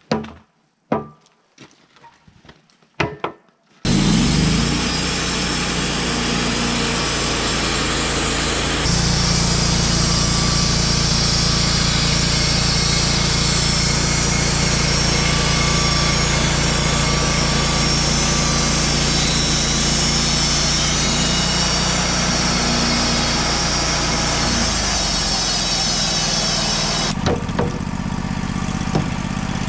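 A few sharp knocks. Then the Wood-Mizer LT35 Hydraulic portable sawmill runs loud and steady, its engine driving the band blade through a log on a cut. Near the end the cutting hiss drops away and the engine runs on alone.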